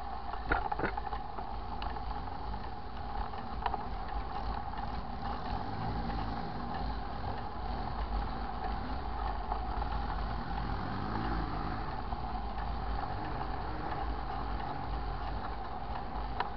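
Bicycle rolling along a paved street: steady tyre and drivetrain noise, with a few sharp clicks about half a second in.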